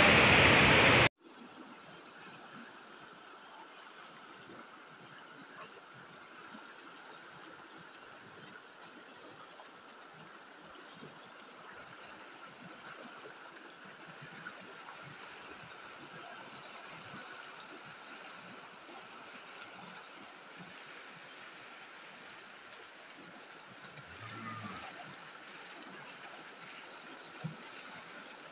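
Loud rushing roar of a muddy flash-flood torrent for about the first second, cut off suddenly; then the faint, steady rushing of floodwater flowing down a street.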